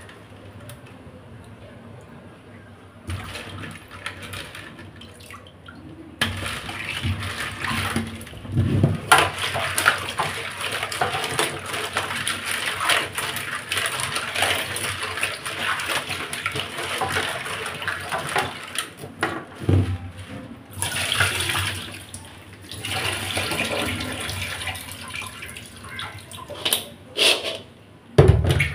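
Water sloshing and splashing in a pot as hands rub and rinse raw crab pieces. It is quiet for the first few seconds, then the splashing goes on busily with a short lull about two-thirds of the way in.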